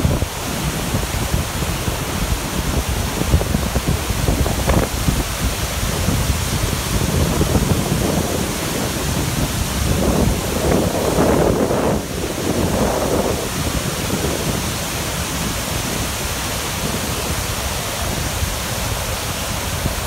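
Athabasca Falls: a large waterfall of heavy river water pouring over rock, a loud, steady rush of falling water.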